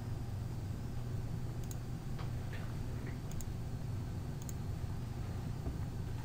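Steady low room hum with a few faint, sparse clicks about a second apart from computer mice and keyboards.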